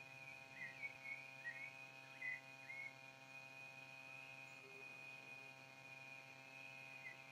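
Near silence: faint outdoor ambience with a steady high-pitched whine and a handful of short bird chirps in the first three seconds.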